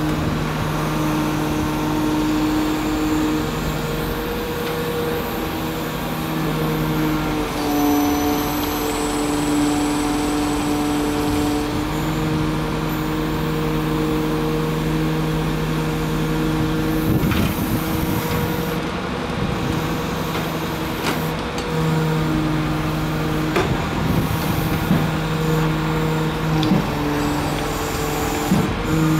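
Pontoon excavator's engine and hydraulics running steadily while the boom swings and the grab bucket works. The hum steps in pitch and level several times as the load changes, with a few sharp knocks in the second half.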